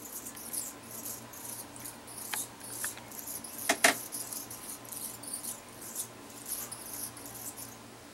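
Hummingbird chittering: rapid, very high-pitched squeaky chips, with one sharp double click a little under four seconds in.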